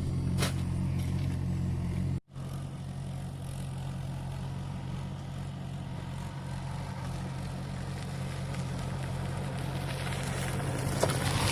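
Yamaha FZ's single-cylinder engine idling steadily. The sound drops out briefly about two seconds in, then carries on a little quieter.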